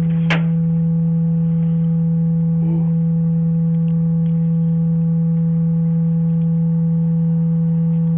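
A loud, steady low hum held at one unchanging pitch, with fainter higher overtones. A short click sounds just at the start.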